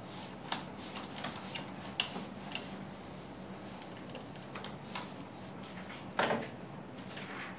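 Whiteboard being wiped clean by hand: a series of soft, quick rubbing strokes across the board's surface, with a louder rustle a little after six seconds in.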